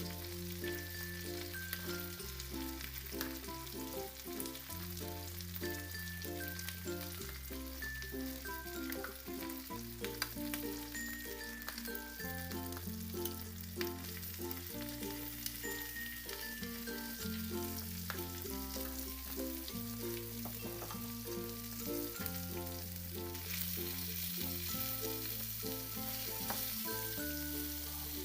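Food frying and sizzling in a miniature pan while it is stirred, the sizzle growing louder near the end, under background music with a slow bass line and a light melody.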